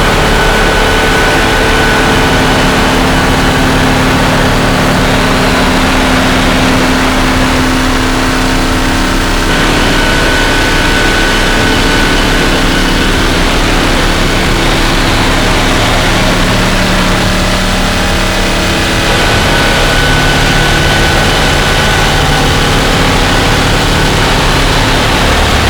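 Harsh noise drone from a synthesizer run through distortion and effects pedals: a loud, dense wall of distorted noise with steady held tones inside it. The texture shifts about every ten seconds.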